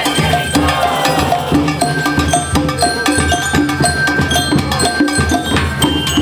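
School marching band (banda de guerra) playing a march: drums keep a steady beat under bright, bell-like held melody notes. A new, higher note comes in near the end.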